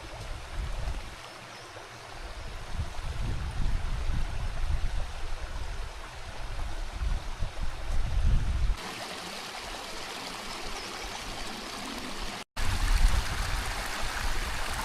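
Steady rushing of running water, like a stream, with wind gusting on the microphone as a low rumble. The sound changes abruptly about nine seconds in and drops out for a moment a few seconds later, as at edits.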